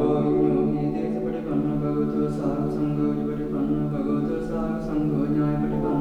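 Chant-like sung vocal music over a steady low drone, the sung notes held and changing every second or so.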